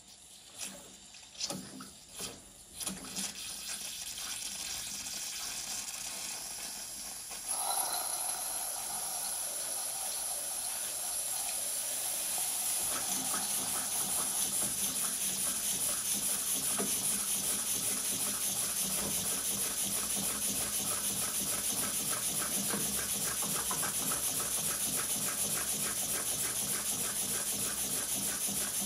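A few knocks as the boiler's steam valve is opened, then steam hissing, growing sharply louder about seven seconds in. From about twelve seconds the small lathe-built steam engine is running up on its first spin, its exhaust beating in a fast, even rhythm over the hiss.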